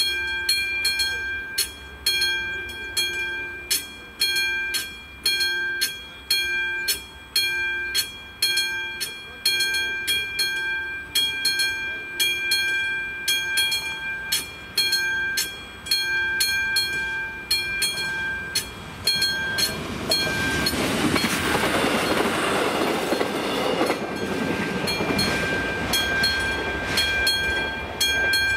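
Czech level-crossing warning bell at the AŽD 71 flashing signals, ringing a repeated ding at an even pace, about once a second. From about twenty seconds in, a passing train's rumble and wheel noise swell up for several seconds and then fade, partly covering the bell.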